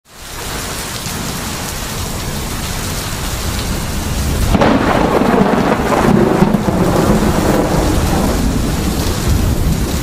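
Steady heavy rain, with a long roll of thunder that starts about halfway through, swells for a couple of seconds and then slowly dies away under the rain.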